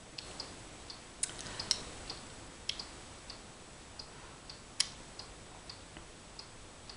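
Pendulum wall clock ticking steadily, roughly two ticks a second, with a few louder sharp clicks among the ticks, the loudest about five seconds in.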